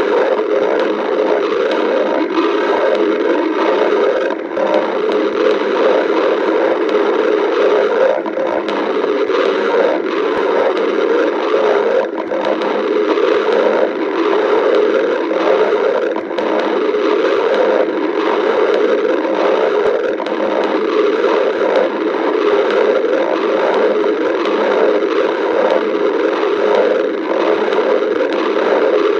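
Stomach growling, heard up close: a loud, unbroken rumble with a fast crackly, gurgling texture.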